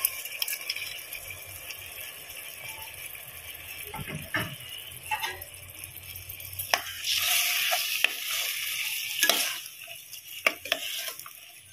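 Rice, pigeon peas and masala sizzling in oil in a pressure cooker, with a metal spoon scraping and knocking against the pot as the rice is stirred in. The stirring gets louder about seven seconds in, with several sharp knocks of the spoon.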